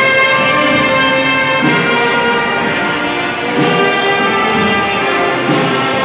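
Orchestral music with brass playing sustained chords that change every second or so.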